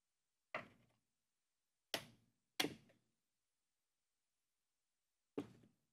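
Small hardwood box lid and box being handled and set down on a bench: four sharp wooden knocks, one about half a second in, two in quick succession around two seconds, and one near the end.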